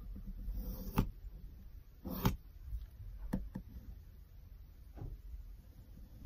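Pencil and plastic set square being handled on a cutting mat while a line is drawn: a handful of light, scattered taps and clicks over a low steady hum.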